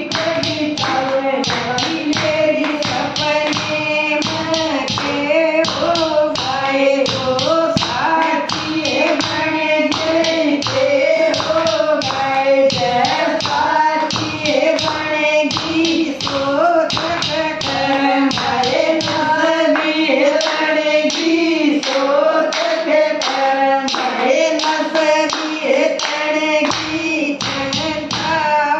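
Group of women singing a devotional bhajan together, with steady rhythmic hand-clapping keeping the beat.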